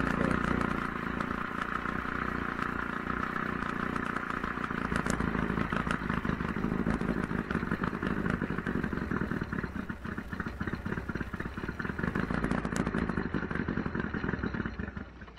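Mercury 500 50 hp outboard's two-stroke engine running steadily out of the water, with no cooling water coming out of the tell-tale: the new water-pump impeller is still not pumping. The engine sound cuts off about a second before the end.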